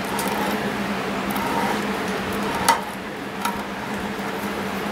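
Hand threading die being turned on a 5/16 steel bolt to cut fine threads, a steady scraping with two sharp metal clicks about two and a half and three and a half seconds in.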